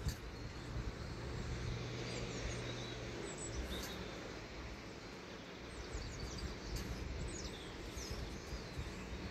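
Outdoor ambience: small birds chirping on and off over a steady low background rumble, with a low hum in the first few seconds.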